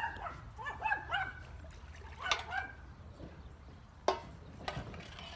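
A dog whimpering and yipping in short, high, wavering cries, mostly in the first second and a half. A single sharp knock comes about four seconds in.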